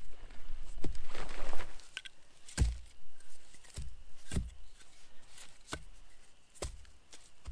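A fabric bag rustling and cut firewood log rounds shifting on it, then about five dull wooden knocks, the first the loudest, as the logs are set down one by one on the pine-needle ground.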